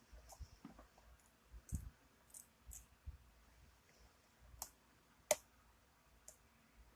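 Faint, scattered metal clicks of a lock pick working the pins inside a lock cylinder, with the sharpest click about five seconds in.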